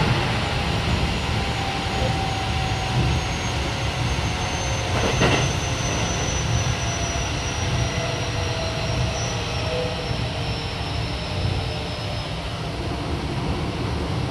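Running sound of a Keio 7000 series electric train (Hitachi IGBT VVVF inverter) heard inside the car: a steady low rumble of wheels on rail, with a faint high whine that slowly falls in pitch. A single sharp knock comes about five seconds in.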